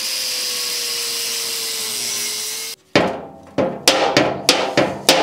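Angle grinder grinding through the weld on a steel pipe fitting with a steady whine that sags slightly before the tool is switched off about two and a half seconds in. A string of sharp metallic knocks with brief ringing follows as the fitting is worked loose from the steel shell.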